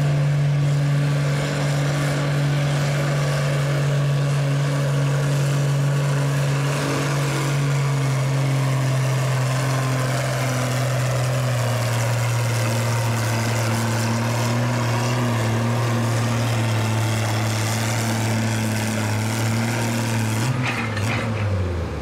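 Oliver Super 77 farm tractor's six-cylinder engine running flat out under load while pulling a weight-transfer sled, its pitch sagging slowly as the sled bogs it down. Near the end the engine drops off as the pull ends.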